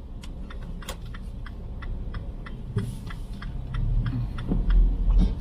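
Car turn-signal indicator clicking steadily, about three clicks a second, over the low rumble of the moving car, which grows louder near the end.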